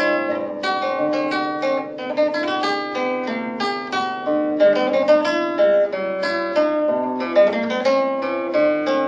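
Background music of plucked strings picking out a quick run of notes, each note ringing and fading under the next.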